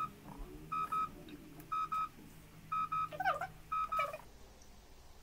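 Smartphone on speaker playing an outgoing-call tone: a short high double beep repeating about once a second while the call waits to connect.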